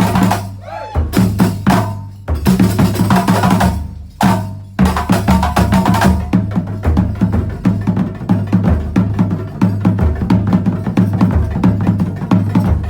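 Terbang frame drums played together in a fast, dense interlocking rhythm with deep drum tones. The playing breaks off briefly about a second in and again about four and a half seconds in, then runs on steadily.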